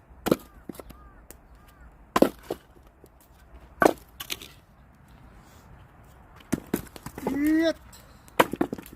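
An axe splitting firewood: five heavy blows into a log, roughly two seconds apart, with a short shout of effort just before the last one.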